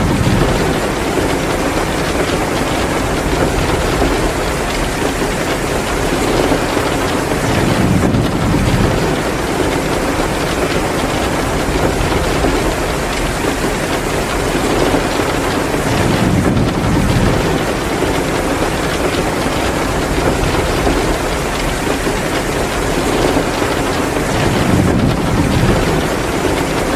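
Heavy rain pouring steadily, mixed with a crackling wood fire. A low rumble swells and fades about every eight seconds.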